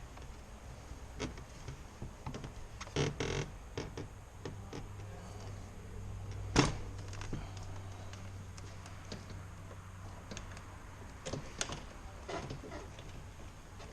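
Scattered light clicks and knocks of hands and tools working on a car's door trim panel, with one sharper knock about six and a half seconds in. A low steady hum runs for about four seconds in the middle.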